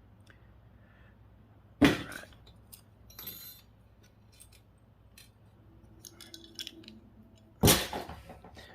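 Small metal parts and tools being handled on a work surface: two sharp clinks about six seconds apart, with light taps and rattles in between.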